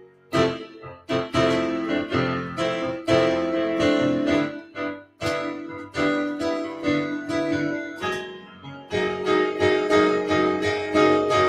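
Keyboard played with a piano sound: chords and melody notes struck one after another at an unhurried pace, each left to ring.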